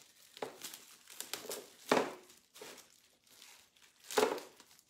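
Packing material crinkling and rustling as small paint jars are pulled out of a shipping box, in irregular rustles, loudest about two seconds in and again near the end.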